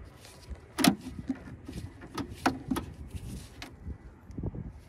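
Scattered clicks and knocks of hands handling parts in a car's engine bay, the loudest about a second in and several lighter ones after.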